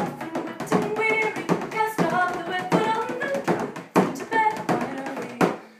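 A woman singing held, melodic notes while beating a hand-held frame drum in a running rhythm of sharp strokes. Both break off briefly near the end.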